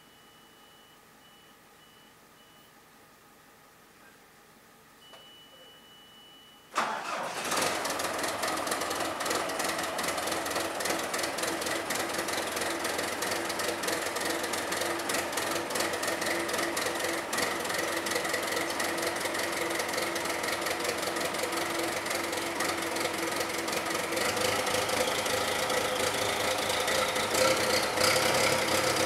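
John Deere 5525's turbocharged diesel engine on a cold start. A high beep sounds on and off with the key on, then the engine fires abruptly about a quarter of the way in and settles into a steady idle. It grows louder near the end.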